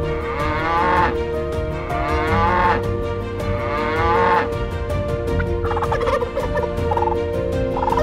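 Cattle mooing, three long calls one after another, followed from about six seconds in by a turkey gobbling in a rapid, choppy run.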